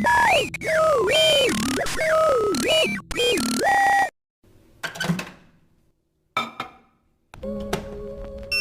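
Electronic meme sound effects: a loud synthesized tone sliding up and down in pitch for about four seconds, then a pause, two short bangs that fade away, and a steady electronic hum with beeping starting near the end.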